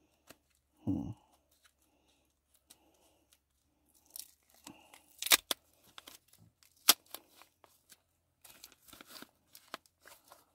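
Plastic caution tape being peeled and torn off a small wrapped object by hand: crinkling and tearing with sharp crackles and clicks, and a dull bump about a second in.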